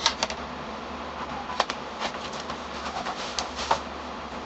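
Packaging being handled as a bubble-wrapped keyboard is pulled out of its cardboard box: a quick cluster of sharp clicks at the start, then irregular crinkles and clicks of plastic wrap and cardboard.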